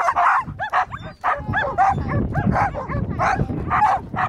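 Dogs barking and yelping near the microphone, a rapid string of short, arching yips about three a second, with a low rumble underneath.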